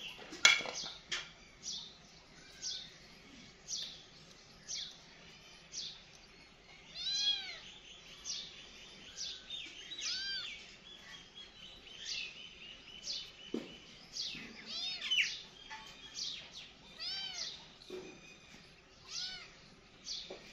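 A ginger kitten mewing over and over: short high calls about once a second, with several longer, rising-and-falling meows among them. A sharp click sounds about half a second in.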